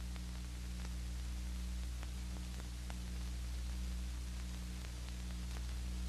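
Background noise of an old film soundtrack: a steady low hum under an even hiss, with a few faint, scattered clicks.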